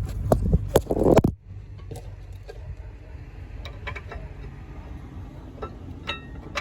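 Small metal brake parts being handled, clicking and clinking. A low rumble with sharp clicks runs for about the first second and cuts off abruptly. Scattered light clicks follow, with one short ringing metallic clink near the end.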